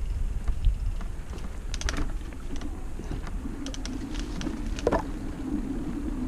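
Mountain bike rolling along a dirt trail: a steady low rumble with scattered clicks and rattles. From about two seconds in a steady low hum joins.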